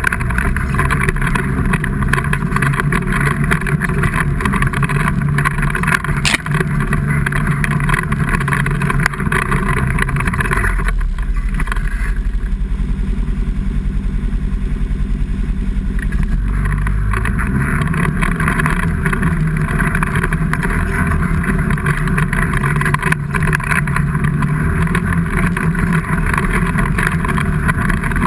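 A vehicle engine running hard under load, its note falling back to a lower, softer drone about eleven seconds in and picking up again some six seconds later.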